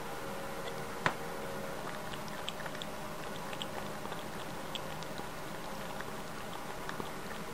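Calico cat lapping water from a bowl: a run of small wet ticks and clicks, with one sharper click about a second in, over a steady background hum.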